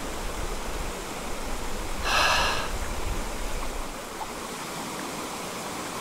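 Small mountain stream rushing steadily over rocks. About two seconds in comes a short, breathy exhale close to the microphone.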